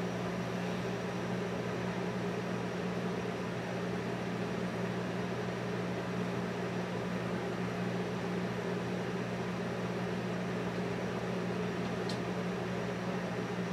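Steady low electrical hum with an even hiss behind it, from equipment running in the workshop; a faint short tick near the end.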